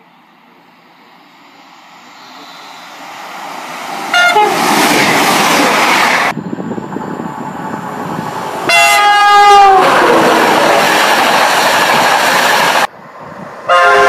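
Passenger trains running through stations at speed and sounding their horns. A short blast comes about four seconds in, after the train's noise has swelled. A longer horn around nine seconds, from an East Coast Class 91 electric locomotive, drops in pitch as the train passes, and another horn starts just before the end. The sound cuts abruptly between trains.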